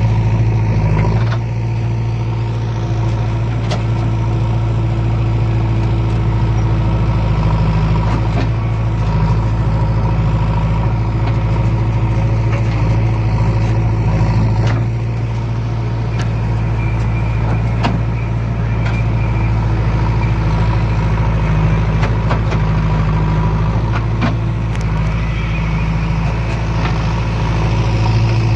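JCB 3DX backhoe loader's diesel engine running steadily under work, with a few sharp knocks now and then.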